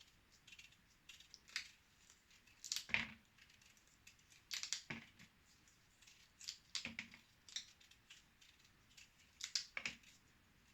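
Short scraping strokes of a vegetable being peeled, coming in irregular clusters every second or two.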